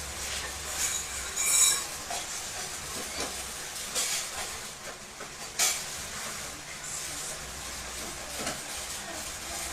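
Handling noise from working on a large flat-screen TV: a few scrapes and knocks, the loudest and squeakiest about a second and a half in, over a low steady hum.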